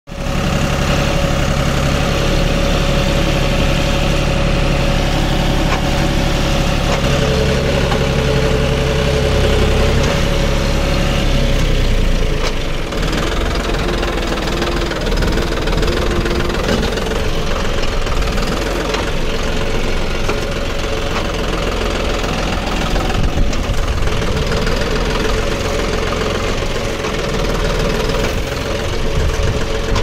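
Tractor diesel engine running steadily close by, its note changing and turning rougher about twelve seconds in.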